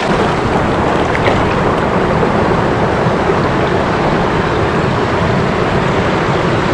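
Swift, high creek water rushing steadily close by.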